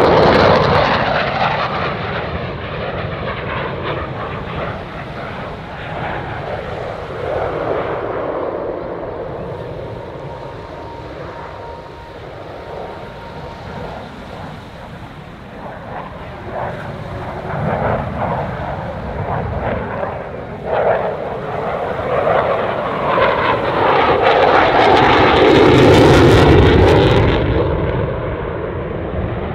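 Jet noise from an RAF Eurofighter Typhoon's twin EJ200 turbofans during a display. It is loud at the start, fades as the jet flies far out over the sea, then swells to its loudest a few seconds before the end as the jet comes back close with its afterburner lit, the pitch sweeping as it passes.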